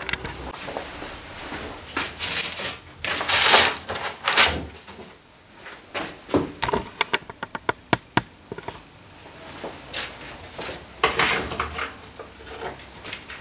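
Workshop handling noises: tools and small objects knocked and set down on a bench, with rustling and scraping, and a quick run of small clicks about halfway through.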